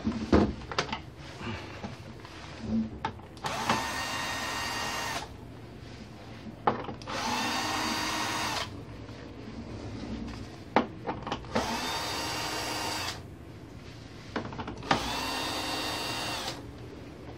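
Cordless electric screwdriver running in four separate bursts of about one and a half to two seconds each, driving screws out during disassembly. Short clicks and knocks of handling fall between the bursts.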